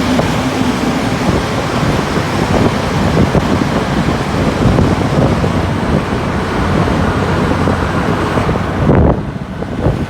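Wind rushing over the microphone and road noise from a moving scooter, loud and steady, thinning out sharply about nine seconds in.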